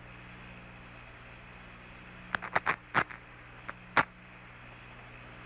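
Steady hiss and low hum of the Apollo 10 air-to-ground radio link. A quick run of about eight sharp clicks and crackles breaks it over a second and a half, starting a little over two seconds in.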